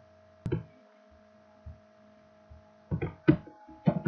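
Steady electrical hum under a handful of sharp clicks from a computer keyboard: one about half a second in, then a quick cluster of four near the end, as a command is entered.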